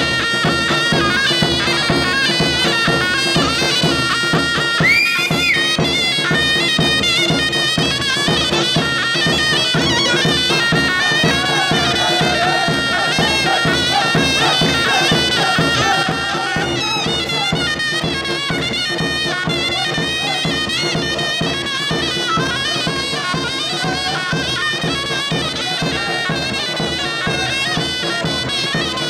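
Instrumental Kurdish folk music: a reedy, wavering wind melody over a steady drone, with a regular drum beat. It gets a little quieter about halfway through.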